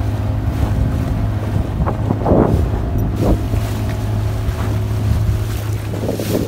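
Small boat's outboard motor running steadily at speed across choppy water, with wind buffeting the microphone and water splashing against the hull, loudest a couple of seconds in.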